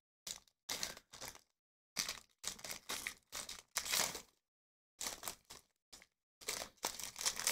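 Foil wrapper of a 2019-20 Upper Deck SP Game Used hockey card pack crinkling and crackling as hands work it open from the back seam, in a series of short bursts with silent gaps between them.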